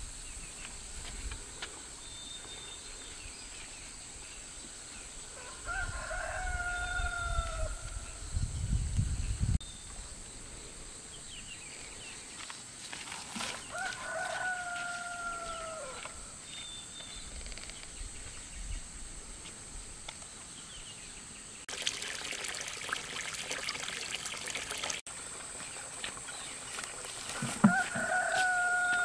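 A rooster crowing three times, each crow a long held call that falls in pitch at the end. A few seconds of rustling hiss come between the second and third crows.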